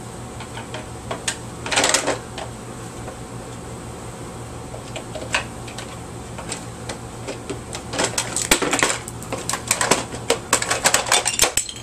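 Small plastic and metal clicks, taps and rattles as screws are taken out of a small vacuum cleaner's plastic housing and its parts are handled. Sparse at first with a short rustle about two seconds in, then rapid clicking and clattering from about two thirds of the way through.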